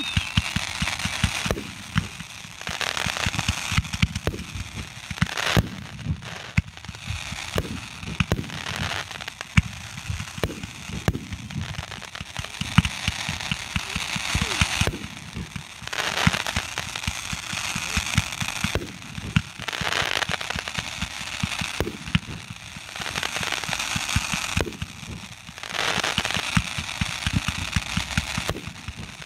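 Fireworks shooting sparks up from the ground, with a hiss that swells and fades in waves of a few seconds over dense crackling pops.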